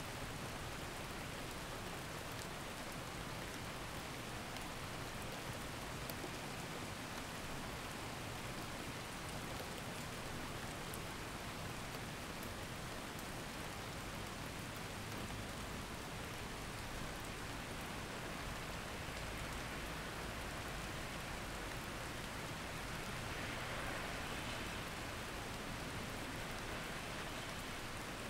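Steady rain, an even hiss with faint scattered drop ticks, playing as the masking sound of a subliminal audio track; it swells a little near the end.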